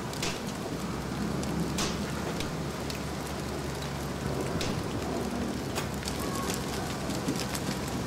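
Small open fire burning: a steady hiss with irregular crackles and a few sharper pops.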